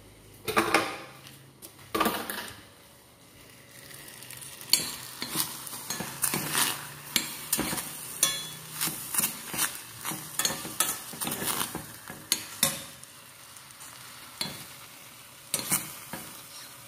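A metal utensil stirring and scraping leftover rice porridge and salmon in a stainless steel saucepan on a gas burner, with irregular clinks against the pan over a low sizzle. Two louder knocks come in the first two seconds.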